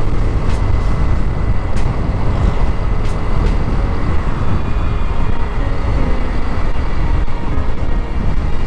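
Steady wind and road rumble on a helmet or handlebar camera's microphone as a Yamaha Mio scooter cruises at a constant speed, with a few faint ticks in the first few seconds.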